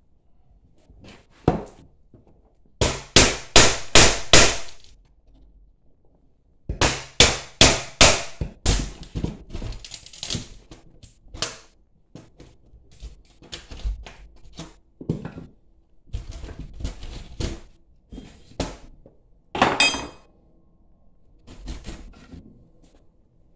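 Sharp knocks and bangs from an old basement window being struck and worked loose from its frame. There are two quick volleys of about four blows a second, then scattered knocks and a louder clank with a brief ring about twenty seconds in.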